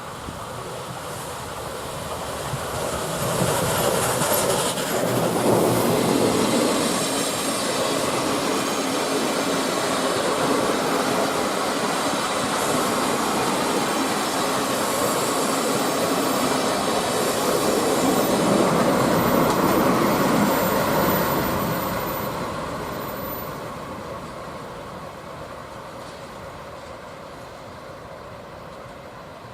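Passenger train passing: steam locomotive C61 20 and five old-type coaches, with diesel locomotive DD51 895 at the other end. The wheels clatter over the rail joints. It builds over the first few seconds, stays loud, and fades away from about 22 seconds in.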